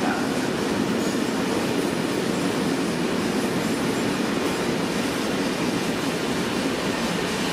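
Long freight train of covered sliding-hood wagons rolling steadily past, a continuous rumble of wheels on the rails.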